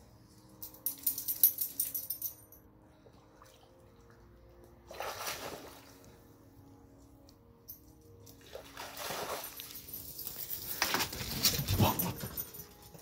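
A corgi moving in a shallow mud puddle, with short bursts of splashing about a second in and again about five seconds in. A longer, louder noisy stretch follows near the end, peaking in a thud.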